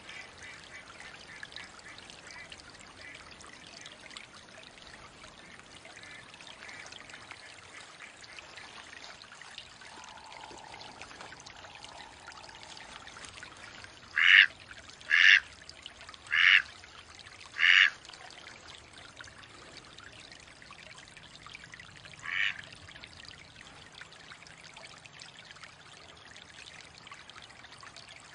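Mallard quacking: four loud, short quacks about a second apart about halfway through, then a single weaker quack a few seconds later, over a steady wash of running water.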